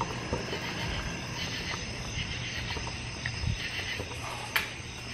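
Steady night chorus of crickets and other insects, a continuous high chirring, with a sharp click about four and a half seconds in.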